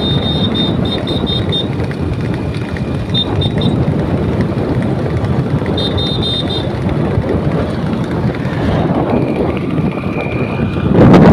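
Steady wind rushing over the microphone with the running noise of a vehicle following a two-horse racing cart on a paved road, interrupted three times by short bursts of a rapid high-pitched beeping, and a brief high steady tone near the end.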